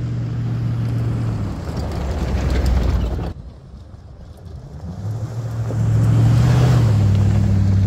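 Lifted Jeep Grand Cherokee's engine running as it drives over dirt. The sound cuts off abruptly about three seconds in, then the engine comes back and grows louder as the Jeep climbs toward the microphone.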